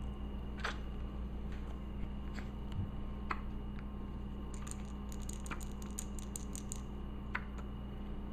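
A baby's hiccups: short, sudden catches coming every two to three seconds over a steady low hum. A quick run of faint high ticks comes between them around the middle.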